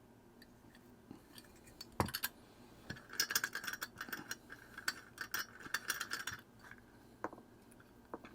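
Small clicks and scratchy rattling of the glass crystal being worked into a Casio DW-290 watch case: one sharp knock about two seconds in, then about three seconds of rapid clicking, with a few single clicks near the end.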